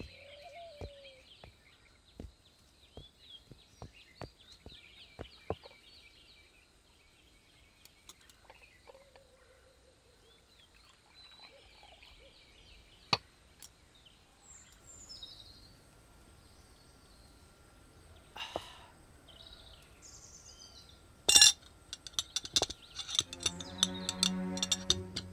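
Birds chirping in the background, with scattered light clicks and clinks from porcelain teaware as tea is poured. There is one sharp click a little over 20 seconds in, and music begins near the end.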